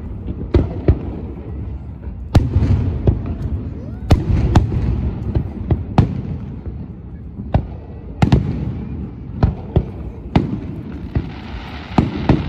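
Aerial firework shells bursting: about a dozen sharp bangs at uneven gaps, each followed by a low rolling rumble. A hiss builds toward the end.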